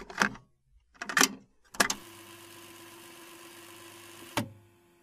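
Several sharp clicks and knocks, then a steady mechanical hum with a low tone that starts abruptly about two seconds in and runs for a couple of seconds before a thump near the end.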